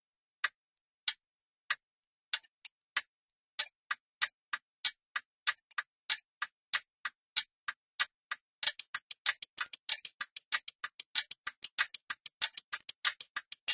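Computer keyboard keystrokes as words are typed out: a few scattered clicks at first, then steady typing that speeds up into a fast run of clicks from about nine seconds in.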